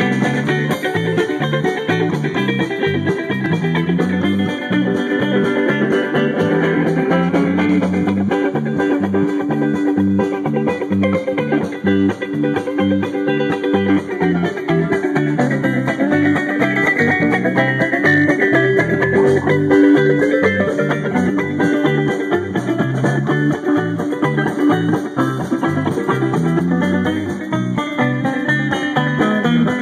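Live band playing amplified music, with electric bass, a drum kit and plucked strings keeping a steady beat.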